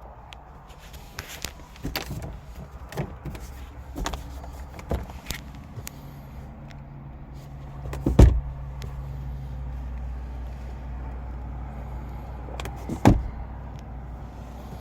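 Car door handling: scattered clicks and knocks, then two heavy thumps about five seconds apart, over a steady low hum that comes in about six seconds in.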